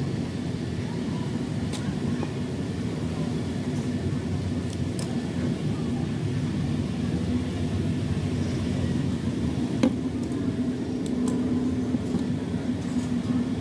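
A steady low rumble and hum in the background, with a few light clicks and taps as wooden craft sticks and a utility knife are handled on a cutting mat. The sharpest tap comes about ten seconds in.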